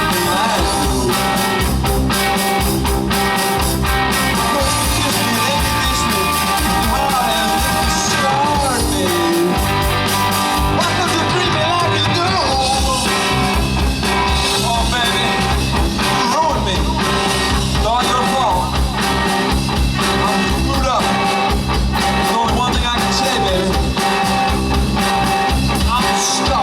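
Rock band playing live with singing and guitar; the song ends right at the close.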